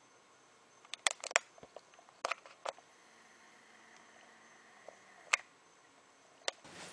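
Quiet room tone broken by scattered sharp clicks and taps: handling noise on a handheld camcorder. Three come close together about a second in, then a few single ones.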